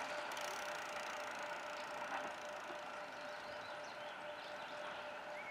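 EN57 electric multiple unit running away into the distance: a steady hum with a fixed whining tone, slowly fading. A few bird chirps come in near the end.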